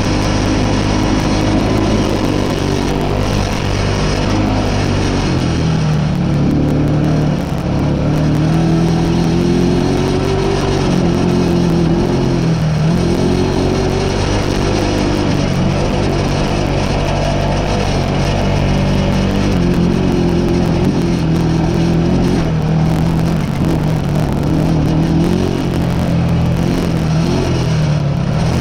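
Honda TRX300EX quad's single-cylinder four-stroke engine running hard under riding load, its pitch rising and falling repeatedly as the rider works the throttle.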